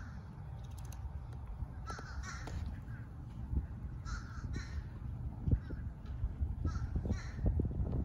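Harsh, crow-like bird calls given in pairs, three pairs a couple of seconds apart, over a low rumble.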